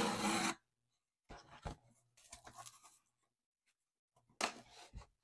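Cardboard shipping box being torn open: the tear strip rips along the box's edge for about the first half second. Scraping and rustling cardboard follows as the flap is lifted and handled, with a dull knock near the end.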